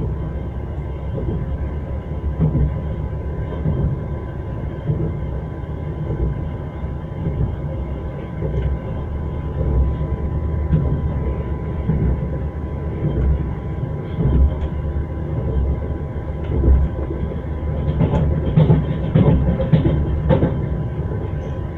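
Train wheels knocking over rail joints above the steady low rumble of a moving train. The knocks come thicker and louder near the end.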